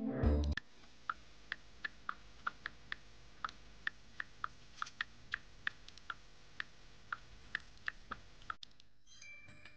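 Smartphone touch-keyboard key clicks as a message is typed, about three light taps a second, a little uneven. A short low thump sounds at the very start.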